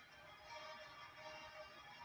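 Faint music playing in the arena during a timeout, heard low in the TV broadcast mix.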